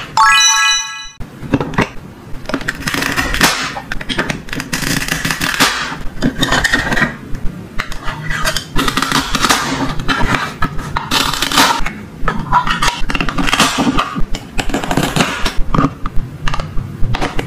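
Hard plastic toy cake pieces, a small plate and toy tongs being handled: repeated clicks, taps and scrapes of plastic on plastic. A short bright chime sounds about a second in.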